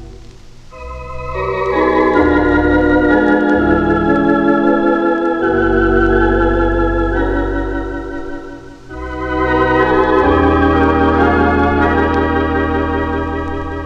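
Organ playing slow, sustained hymn chords with vibrato over deep pedal bass notes, from a vinyl LP. The chords swell up after a brief lull about a second in, ease off a little past the middle, then swell again.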